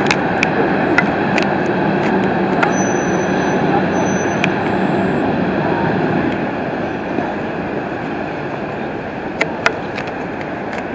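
Fast fire-rescue boat running at speed, its engines and rushing wake making a steady noise that slowly eases off in the second half. A few sharp clicks come through it.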